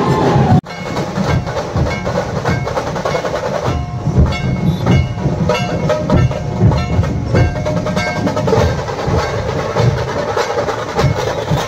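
Street procession drumming: a fast, continuous rhythm of pounding drums with sharp clicking hits. It starts right after a sudden break about half a second in.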